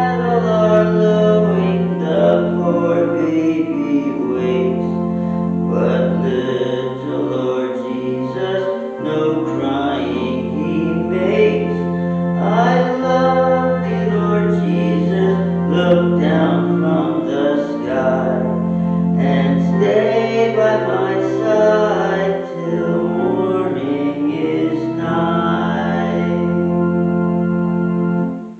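A hymn sung with sustained keyboard accompaniment, the low chords held long under the wavering voice line. The music stops abruptly near the end.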